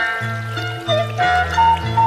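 Background music: a melody over a bass line that steps between notes, with a long held melody note starting near the end.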